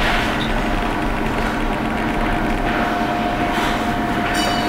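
Steady mechanical hiss with a constant hum tone, the kind of sound a ventilation fan makes, with a brief high ringing near the end.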